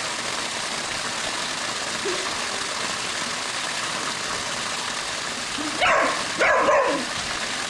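Pool water-feature waterfall splashing steadily into the pool, with a border collie barking a few times about six seconds in.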